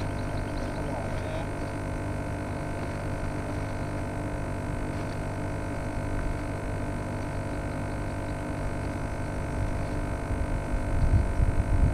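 A steady hum with several fixed tones; a low rumble grows louder near the end.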